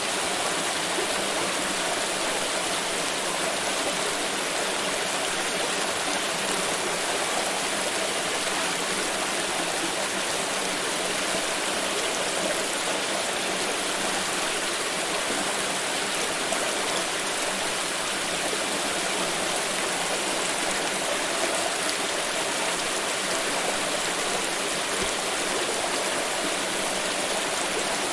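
Water pouring and splashing in a steady, unbroken rush.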